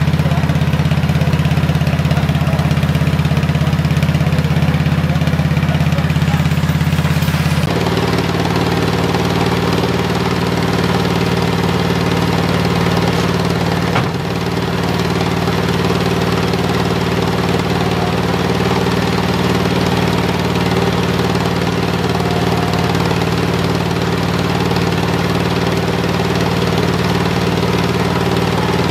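Machinery of a restored 20-stamp gold ore mill running, a steady mechanical drone with a low hum. The sound changes abruptly about eight seconds in, and there is a single sharp click about halfway through.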